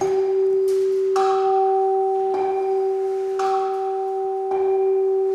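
Two tuning forks on wooden resonance boxes ringing together an octave apart, a G near 392 Hz and the G above it. The low fork is struck at the start. The higher fork is struck again with a mallet about once a second, each strike a short knock before the tones ring on.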